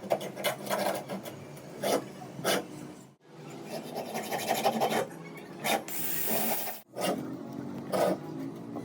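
Repeated rasping, scraping strokes, cut off abruptly twice.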